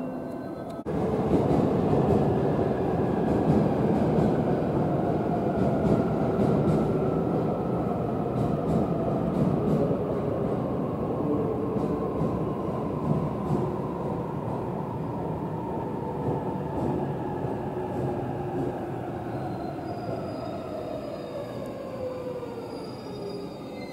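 Electric train running and slowing in Ueno Station: wheel and rail noise with a whine that falls steadily in pitch and a level that slowly eases. The sound comes in abruptly about a second in.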